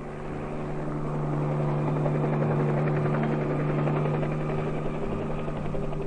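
Tandem-rotor Piasecki HUP Retriever helicopter hovering at lift-off: a steady engine hum with a fast rotor beat, swelling over the first second or two and then holding steady.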